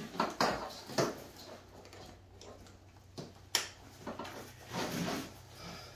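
Handling of a tactical plate carrier's fabric, webbing and pouches: scattered rustles and soft knocks, with one sharp click about three and a half seconds in.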